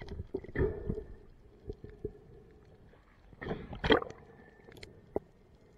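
Muffled underwater sound of a free diver moving through the water: faint water movement with scattered small clicks, and a louder gurgling splash about three and a half to four seconds in as the camera nears the surface.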